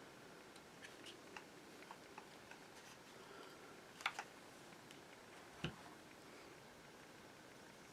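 Near silence with faint scattered clicks and taps, and two sharper clicks about four and five and a half seconds in.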